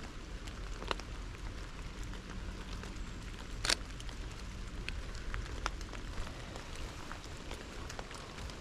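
Steady rain falling, with separate drops ticking now and then and one louder click a little past the middle.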